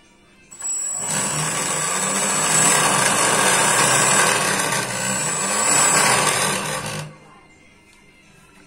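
Homemade electric jet engine, a motor-driven fan in a carbon-fibre-wrapped housing, spinning up to speed under a hand-turned speed knob. It runs with a rush of air and a high whine, eases off briefly, comes back up, and cuts off suddenly about seven seconds in.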